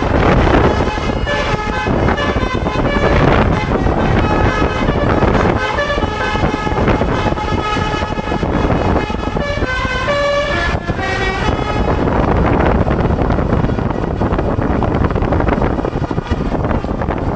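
Bus telolet horn playing a quick melody of several stepped, chord-like notes over dense vehicle noise. The horn stops about twelve seconds in, leaving a loud rushing noise.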